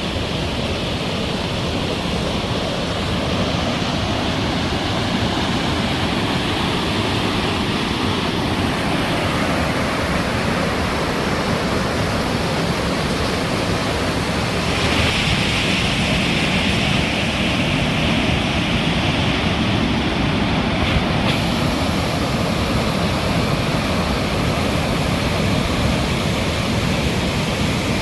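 Steady rush of whitewater pouring through a narrow rock gorge, the Cleddau River's falls at The Chasm, its hiss turning brighter for a few seconds past the middle.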